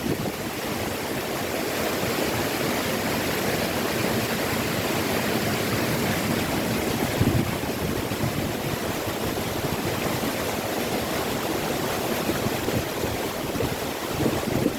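Waterfall rushing steadily, a full, even roar of falling water, with a brief low rumble about seven seconds in.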